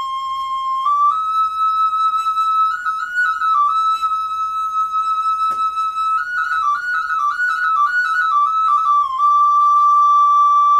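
Handmade tlapitzalli, a pre-Hispanic-style flute (nipipi in Matlatzinca), played as a short melody. Its clear, whistle-like tone steps between a few close notes with quick trills, then settles on one long held note about nine seconds in.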